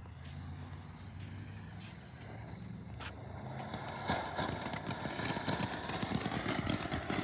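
A small fountain firework catching about three seconds in, then spraying with a dense hiss and rapid crackling that grows louder. A low steady hum sits under the start.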